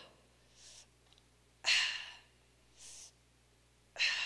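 A woman breathing hard after a dumbbell workout: heavy out-breaths about two seconds apart, near the start, in the middle and near the end, with quieter in-breaths between them.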